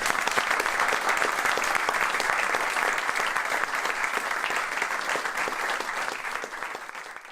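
Audience applauding, many people clapping at once; the applause fades out near the end.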